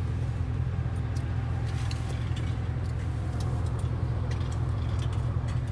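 Steady low rumble of a work truck heard from inside its cab, with a few faint clicks.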